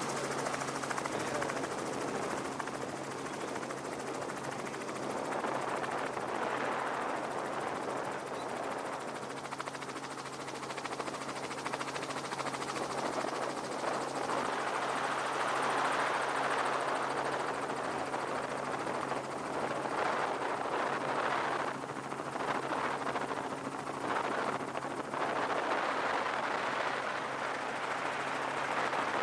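Helicopter running, with a rapid chopping pulse and a steady drone that holds one pitch throughout, under a rushing noise that swells and fades a few times.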